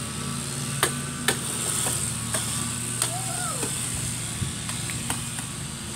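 A small motor running with a steady low drone, with a few light clicks and knocks over it.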